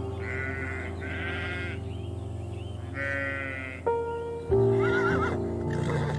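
Background music with short animal calls over it: three brief, rapidly pulsed calls in the first four seconds, then a louder call with a wavering pitch about four and a half seconds in.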